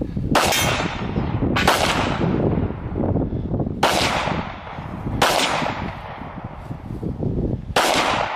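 Five single handgun shots fired a second or more apart, each followed by a long ringing tail as it fades.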